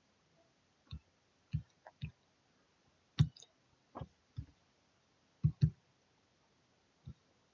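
Computer mouse clicking: about ten sharp, irregular clicks, including a quick double click a little past halfway.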